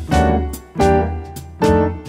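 Background music: an instrumental tune with chords struck about every three-quarters of a second.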